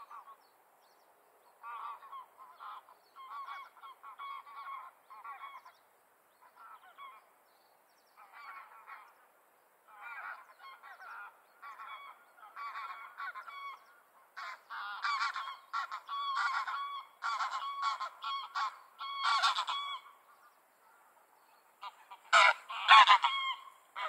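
Common cranes calling in bouts of quick repeated notes that grow louder through the middle, with the loudest calls a couple of seconds before the end.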